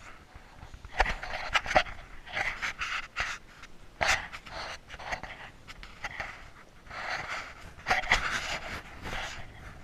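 A person breathing hard close to the microphone: heavy, uneven gusts of breath about once a second, with a few sharp knocks in between.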